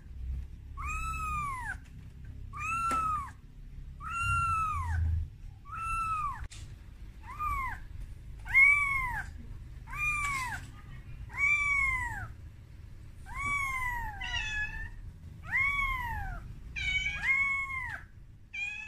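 Young calico kitten meowing over and over in thin cries, about one a second, each rising and then falling in pitch. These are distress calls for its mother.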